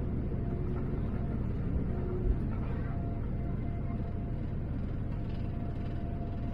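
Cabin noise of a Boeing 787-9 at takeoff power through rotation and liftoff: a steady rumble carrying a constant engine tone, with a single low thump about two seconds in as the aircraft leaves the runway.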